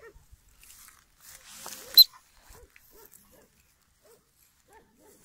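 A dog giving short, faint barks, one every half second or so. A rustle builds to one sharp, loud click about two seconds in.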